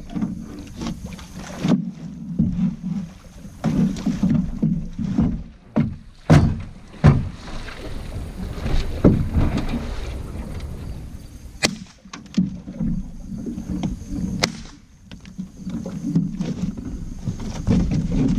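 Water splashing beside a small boat, with sharp knocks and thumps against the hull over a wavering low rumble.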